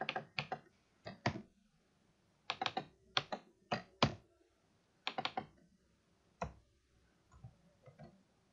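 Typing on a computer keyboard: short bursts of rapid keystrokes with pauses between them, thinning to a few faint taps near the end.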